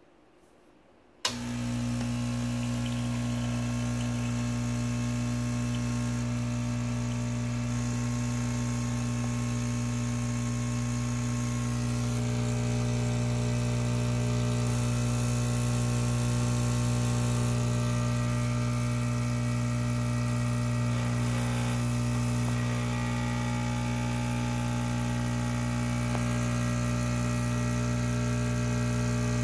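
Francis Francis espresso machine's vibration pump switching on with a click about a second in, then buzzing steadily as it pushes hot water through the group head into a glass jar.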